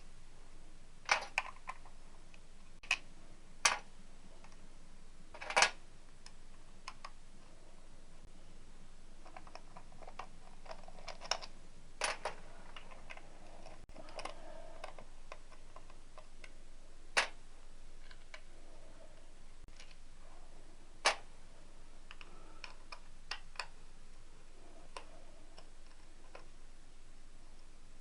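Hand tools and small metal engine parts clinking and clicking as they are handled and set down, about ten sharp irregular clicks with soft handling noise between.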